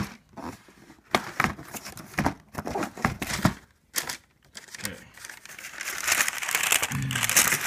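Cardboard shoebox lid being lifted off, with a series of short knocks and scrapes. Then the tissue paper inside rustles and crinkles, getting louder over the last couple of seconds.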